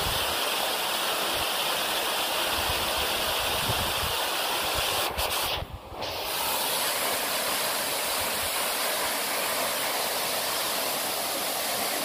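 Waterfall pouring into a rock pool: a steady rush of falling water, briefly cut off just before the middle.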